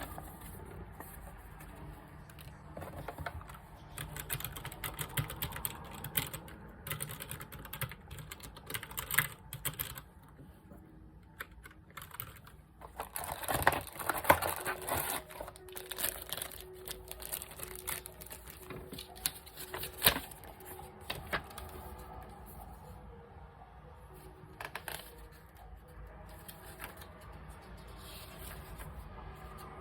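Typing on a computer keyboard, the newly unboxed RGB keyboard: irregular runs of key clicks with short pauses and a fast flurry near the middle.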